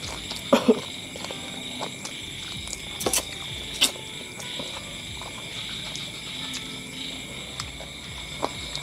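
Steady chirring of a night insect chorus, typical of crickets. Close over it come a few sharp clicks and wet smacks from eating by hand.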